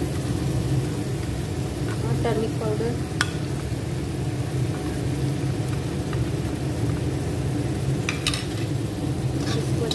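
Chopped onions and ground spices sizzling in hot oil in an iron kadhai while being stirred, with a few sharp clicks, the clearest about three seconds and eight seconds in.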